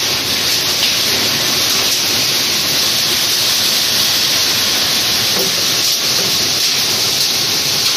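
Heavy rain mixed with hail pelting a concrete patio and yard: a loud, steady hiss with no letup.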